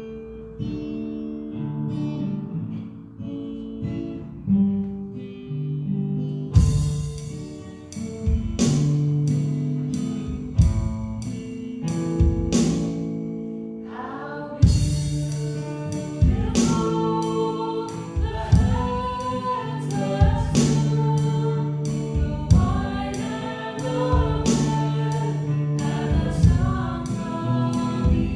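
Worship song with acoustic guitar. It opens with a soft instrumental passage, then steady guitar strumming comes in about a quarter of the way through, and voices start singing along about halfway.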